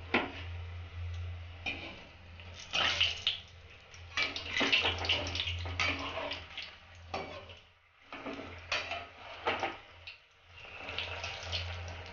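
Besan-battered stuffed tomato chop deep-frying in hot oil in a kadai, sizzling and crackling in uneven bursts as a slotted metal spoon moves through the oil. A low steady hum runs underneath.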